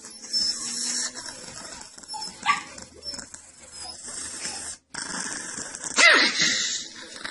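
Long-haired chihuahua growling and giving short yelps at a finger poking its nose, then one loud, high bark about six seconds in.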